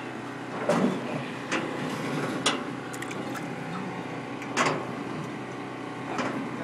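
About five short scuffing and rustling noises over a steady low hum, the loudest about a second in and again near four and a half seconds.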